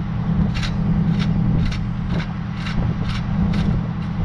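Steady low drone of an idling vehicle engine, with a run of sharp metallic clicks about two a second as a fire hose coupling is turned on the outlet.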